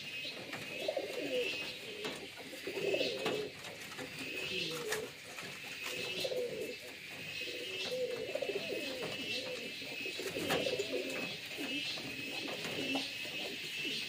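Domestic pigeons cooing over and over, low rolling coos every second or two, over a steady high-pitched chirping in the background.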